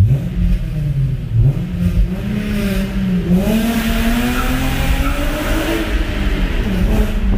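Acura TL's J-series V6 revving under hard acceleration, its pitch climbing for several seconds and then dropping back near the end.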